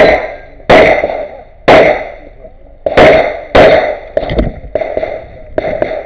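STI TruBor 9x19 competition pistol loaded to major power factor firing a string of about seven shots, spaced from under a second to a little over a second apart, each with a sharp crack and a short echoing tail; the last two are a little weaker.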